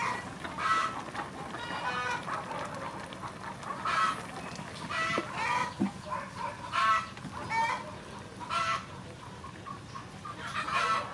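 Chickens calling, short calls repeating about once a second.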